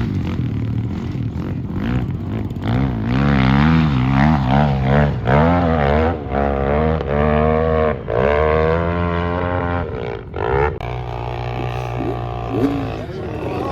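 Quad (ATV) engine revving hard, its pitch swinging up and down again and again under throttle, then settling to a steadier run about eleven seconds in.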